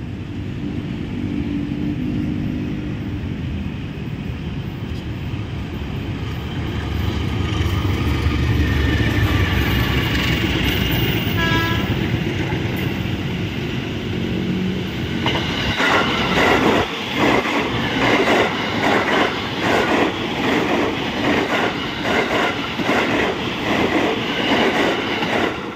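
CC 203 diesel-electric locomotive rumbling as it slowly hauls a passenger train past, its low engine sound strongest about a third of the way in. A short train horn toot from the approaching KRL electric commuter train comes near the middle. From just past the middle, the KRL JR 205 electric multiple unit passes close by at speed, its wheels beating a fast clickety-clack over the rail joints.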